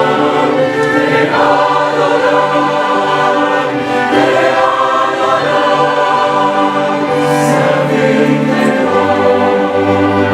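Choral worship music: a choir singing sustained chords over accompaniment.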